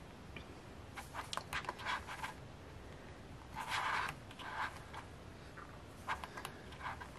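Pages of a paperback lyric book being turned by hand: a series of brief paper rustles and swishes, the longest about four seconds in.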